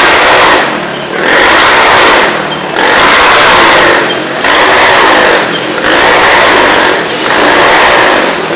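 Loud motorcycle engine running hard inside a steel-mesh globe of death. It swells and dips about every second and a half as the bike circles the sphere.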